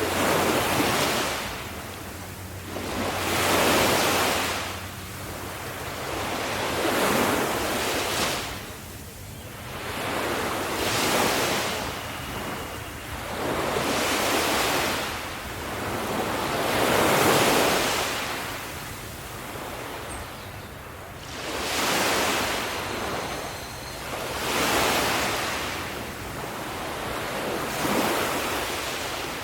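Ocean waves breaking on a shore, the surf surging and washing back in a steady rhythm, a wave about every three to four seconds.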